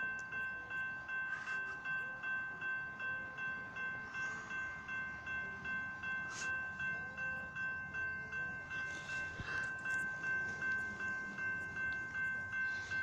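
Railroad grade crossing warning bell ringing steadily at about two strikes a second, sounding while the crossing gates are down.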